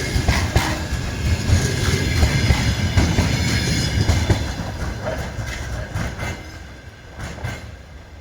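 Train cars rolling past on the rails, wheels clicking over the rail joints over a low rumble; the sound dies away over the last few seconds.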